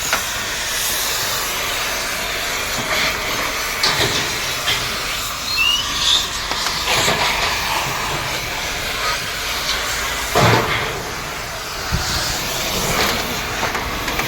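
Gas cutting torch hissing steadily as it cuts through used air-conditioner metal, with a few sharp metal knocks along the way.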